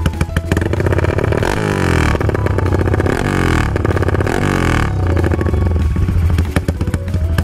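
Yamaha LC135 V3 single-cylinder four-stroke, fitted with a 68 mm CNC big-bore block, revved through an aftermarket stainless muffler. It rises sharply about four times, falling back in pitch after each rise, then drops to a lower, steadier idle near the end.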